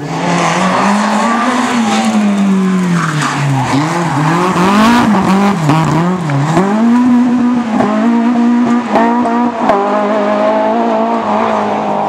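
Rally car engine at full racing revs, its pitch falling and climbing again several times as the driver lifts, brakes and accelerates through a bend, with tyre noise and a few sharp cracks between about eight and ten seconds in.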